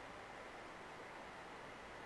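Faint, steady hiss of the recording's background noise, with no distinct sound events.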